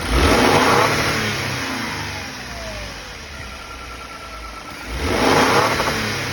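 Lexus LX600's twin-turbo V6 revved twice from idle, about five seconds apart. Each rev climbs quickly and falls back slowly to idle.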